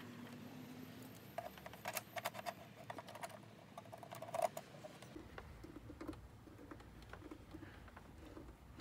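Small clicks and scrapes of a Phillips screwdriver turning a screw into a plastic glass mount inside a tow mirror housing, in a run during the first half, with fainter handling sounds afterwards.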